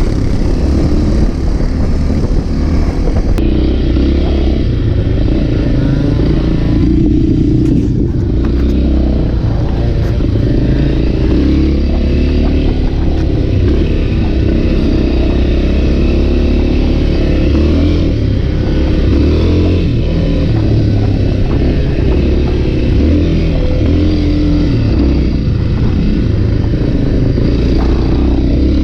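Off-road motorcycle engine running steadily while being ridden.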